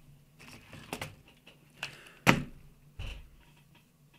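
Plastic LEGO Technic car models being handled and set down on a tabletop: a few light clicks, a sharper knock a little past two seconds in, and a dull thump about three seconds in.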